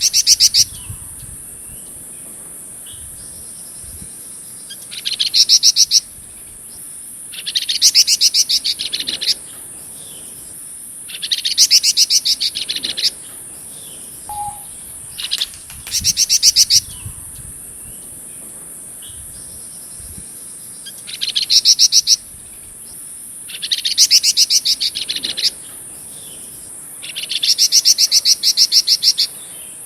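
A flamboyan songbird singing loud bursts of fast, rattling chatter, each one to two seconds long, repeated about eight times with short pauses between. A steady high insect drone runs underneath.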